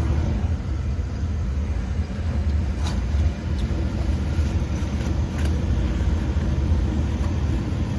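Furnace running, with a steady low rumble from its blower and burner and a couple of faint clicks.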